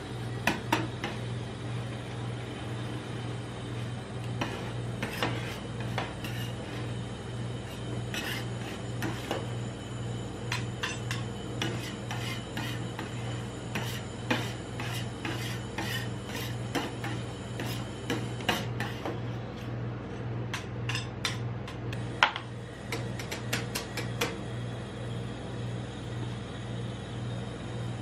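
Metal spatulas scraping and tapping on a steel ice-cream cold plate as rolled ice cream is pushed up into rolls and the frozen residue is scraped off. The scrapes and clicks come in irregular clusters over a steady low hum, with one sharper knock a little after the middle.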